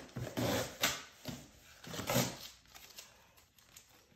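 Cardboard box being opened by hand: flaps pulled and scraped and paper rustling, in a few short bursts over the first two seconds, then only faint handling.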